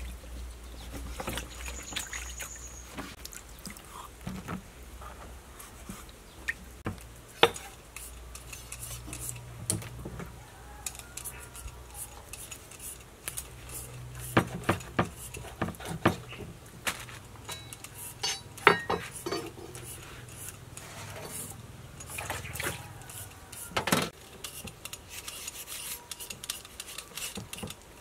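A large kitchen knife cutting into a raw pork leg on a wooden chopping board, with irregular sharp knocks as the blade strikes the board. Water splashes at times as vegetables are washed in a plastic bowl.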